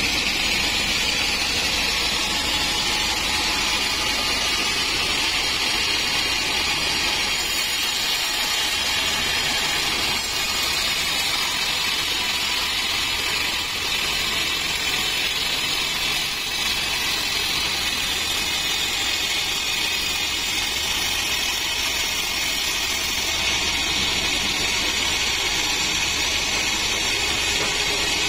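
Sawmill band saw running steadily as its blade cuts lengthwise through a teak log.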